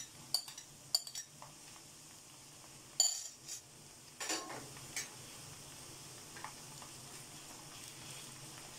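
Sliced onions sizzling steadily in hot oil in a wok as chopped ginger and garlic paste go in. Several sharp knocks of utensils against the pan come through the sizzle, the loudest about three seconds in.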